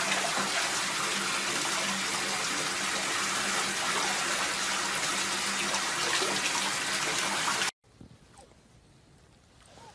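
Water gushing steadily into a bathtub, with a low hum under it. The rush stops abruptly near the end.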